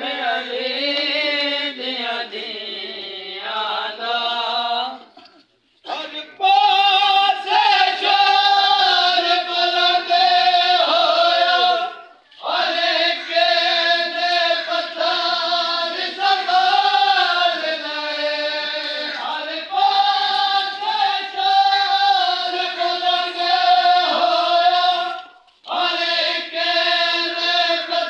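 A group of voices chanting a noha, a Shia mourning lament, in long sung phrases with wavering pitch. The chant breaks off briefly about five seconds in, again about twelve seconds in, and near the end.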